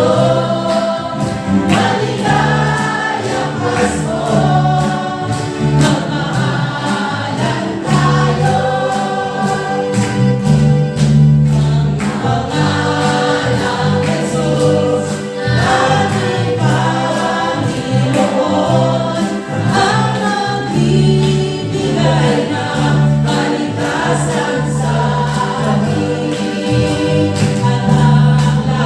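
A choir singing a Christmas carol over an accompaniment with a steady bass line and beat.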